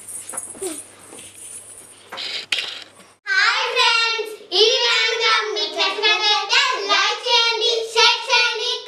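Faint background hiss with a few clicks, then about three seconds in a high-pitched voice starts singing a melody, loud and clear.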